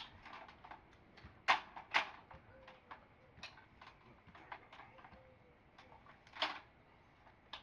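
A ladder being handled and opened out: a series of sharp knocks and clacks, the loudest a pair about one and a half and two seconds in and another near the end.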